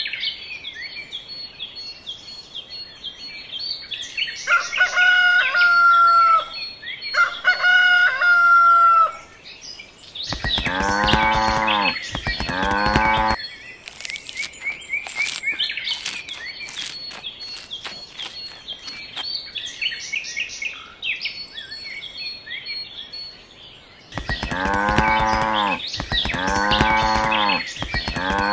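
Farmyard animal sound effects: small birds chirping throughout, a rooster crowing twice, and livestock calling in long wavering calls, twice around ten seconds in and three times near the end.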